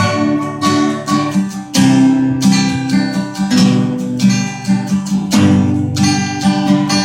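Acoustic guitar strumming chords in a short instrumental break of a country song, with quick regular strokes.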